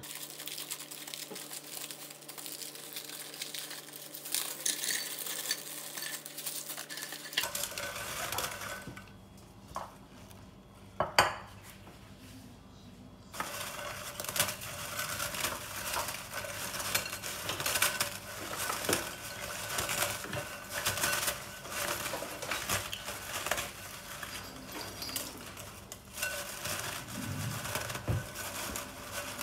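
Kitchen utensils clinking and knocking against dishes as food is prepared, with many small clicks and one sharper knock about eleven seconds in. The background changes abruptly twice.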